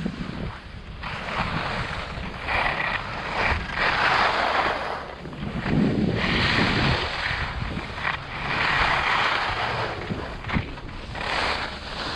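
Skis hissing and scraping over the snow through a series of turns, each turn a swell of rushing noise a second or two long, with wind buffeting the helmet-camera microphone underneath.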